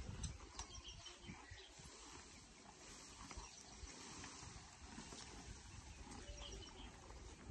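Faint outdoor ambience: scattered small bird chirps over a low, uneven rumble.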